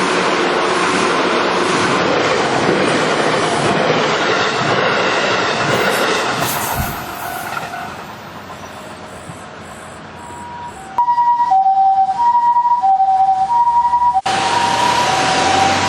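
A train passes the level crossing and its rumble fades away about seven seconds in. About eleven seconds in, a Japanese ambulance siren starts its two-tone "pee-po" call, a high and a low tone alternating evenly, and road noise swells up under it near the end.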